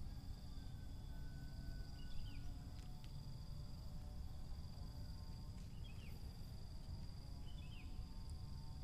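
Outdoor ambience: insects droning in a steady high tone, with a bird giving three short chirps, over a low rumble.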